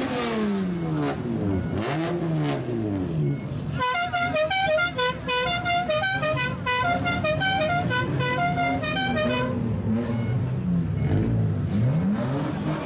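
Straight-piped car engines revving up and down as cars pull away. About four seconds in, a multi-note musical car horn plays a quick tune for around five seconds, then the revving returns.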